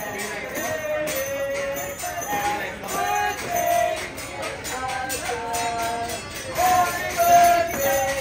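Upbeat music: a melody in held, changing notes over a steady, evenly repeating high percussion beat.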